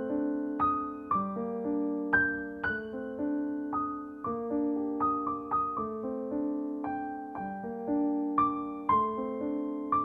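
Soft background piano music: notes and chords struck about two a second, each ringing and fading into the next.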